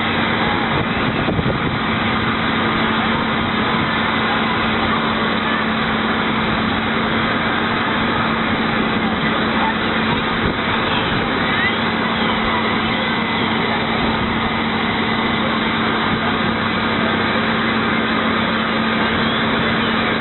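Fire engine running steadily while pumping water to the hose lines: a constant hum under a steady rushing noise.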